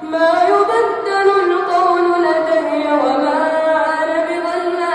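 A boy's voice reciting the Quran in melodic tajweed style, drawing out one word in a long ornamented melisma whose pitch steps and glides up and down.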